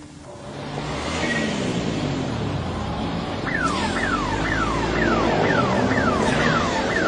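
Street traffic rising into hearing, with an electronic siren starting about three and a half seconds in and repeating a quick falling sweep two to three times a second.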